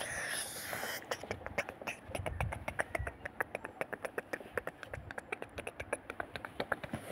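Battery-powered toy Percy engine running along plastic toy track, making a rapid, even clicking of about seven clicks a second that starts about a second in.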